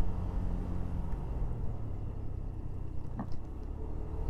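Motorcycle running at a steady road speed: a low, steady engine hum mixed with road and wind noise.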